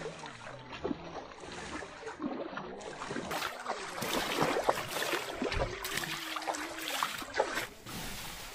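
River water splashing and churning around a Mahindra Bolero's tyres as it drives through a shallow river, in a run of irregular splashes.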